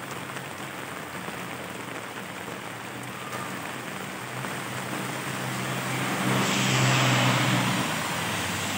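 Steady rain falling on pavement. A car approaches on the wet road with a growing engine hum, and its tyres hiss through the water as it passes, loudest about seven seconds in.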